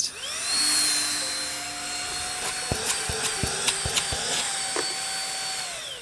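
Motor of an LG CordZero A9 cordless stick vacuum's handheld unit, running without hose or head. It spins up at the start, holds a steady high whine over a rush of air, and winds down just before the end, with a few faint clicks in the middle. It is not very loud.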